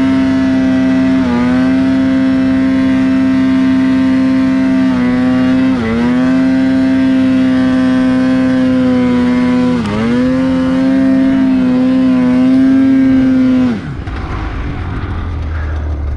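Snowmobile engine held at high revs while the sled ploughs through deep powder, its note dipping briefly three times. Near the end the throttle comes off and the revs fall away to a low rumble.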